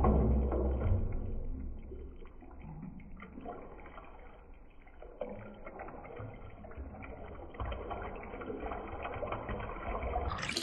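Milk sherbet being stirred in a steel pot and poured back in from a ladle: liquid splashing and trickling, loudest at the start, with a few light clicks of metal on the pot.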